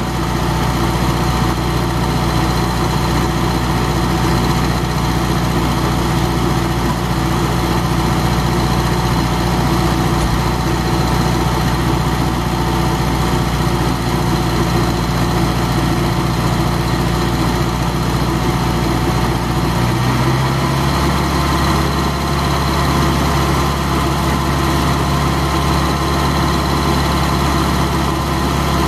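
Vermeer 630 stump grinder's air-cooled engine running steadily with the cutter wheel out of the stump. About two-thirds of the way through, its note shifts and steps up slightly as the operator works the controls.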